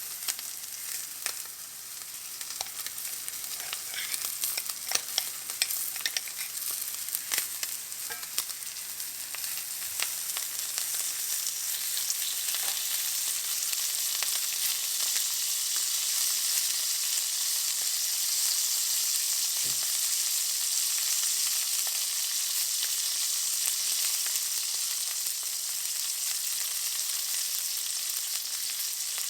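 Steak searing in a hot pan: a steady high sizzle with frequent sharp pops and crackles of spitting fat in the first half, settling into a smoother, more even sizzle from about halfway through.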